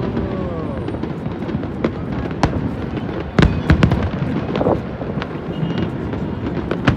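Fireworks display: a continuous rumble of bursts with a series of sharp bangs and crackles, densest about three and a half seconds in.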